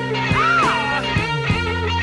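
Background rock music with guitar: sustained notes, a bending lead line about half a second in, and a steady beat.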